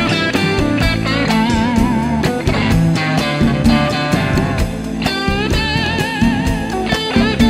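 Background rock music: a guitar-led track with wavering, bending lead notes over a steady beat.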